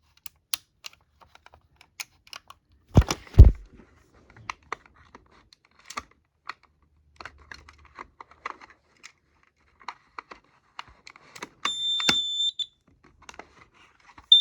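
A battery being worked into a smoke alarm: small plastic clicks and fumbling, with two loud knocks about three seconds in. Near the end the alarm gives one high beep about a second long as the battery connects, and starts sounding again right at the close.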